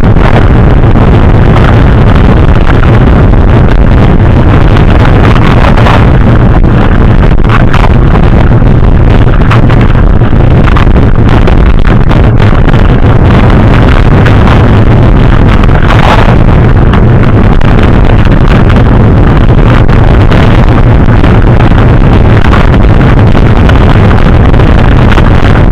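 Loud, steady wind rushing over the microphone with a heavy low rumble, swelling briefly a few times, as from riding a mountain bike at speed.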